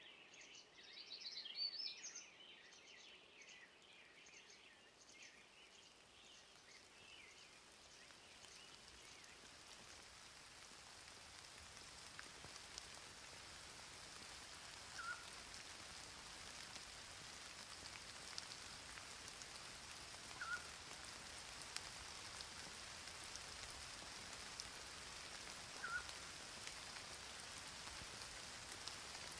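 Faint, steady rain falling, slowly growing a little louder. Birds chirp in the first few seconds, and a short chirp recurs about every five seconds later on.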